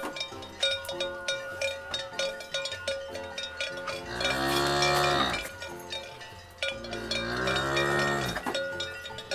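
Cowbells clinking and ringing steadily as cattle move, with two long moos from a cow, one in the middle and one soon after.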